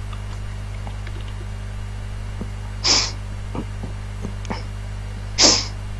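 Steady electrical mains hum on the line, broken by two short hissing bursts about three and five and a half seconds in, with a few faint keyboard clicks in between.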